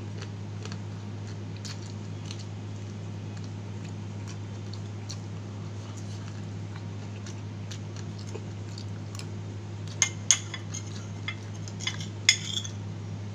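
Faint wet chewing and mouth clicks from eating fried chicken, over a steady low hum. In the last few seconds a metal spoon clinks sharply against the plate several times.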